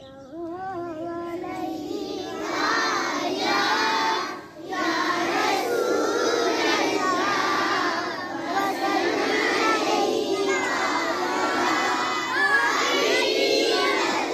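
Unaccompanied recitation of a naat (Urdu devotional verse). A boy's voice sings the line alone, and about two seconds in a large group of children joins in, chanting it with him in unison. There is a short break about four and a half seconds in.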